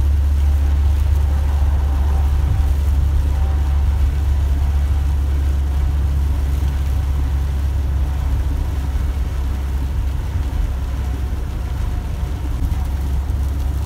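Truck engine running steadily on the highway, heard from inside the cab as a loud, even low drone.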